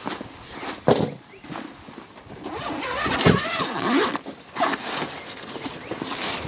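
Zipper and fabric of a padded soft gun case rasping and rustling as it is handled, with a sharp knock about a second in.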